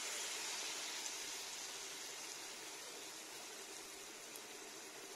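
Batter-coated sukhiyan balls deep-frying in hot oil in a steel kadai, a steady sizzle that slowly dies down after they go in.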